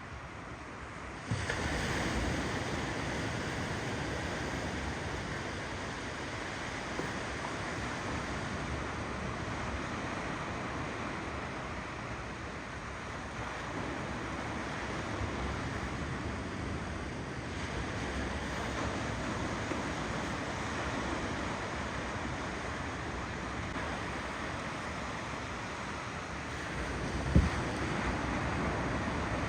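Ocean surf: waves rolling in and breaking as a steady wash of noise, which gets louder about a second in. A brief low thump stands out near the end.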